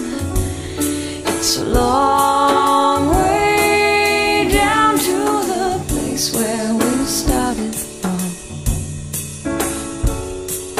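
A pop song playing: sung voices carrying a melody over a band with a steady drum beat.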